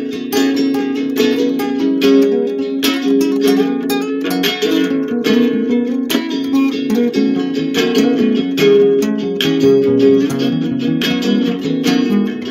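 Acoustic guitar played solo: a continuous run of plucked notes over held lower notes.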